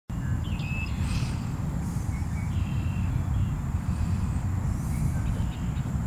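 Outdoor ambience dominated by a steady, uneven low rumble, with faint birds chirping briefly a few times.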